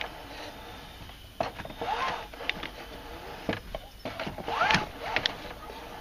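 Mercedes W202 C-class seatbelt webbing sliding out of and winding back into its freshly re-tensioned retractor, in short zipping slides with scattered clicks.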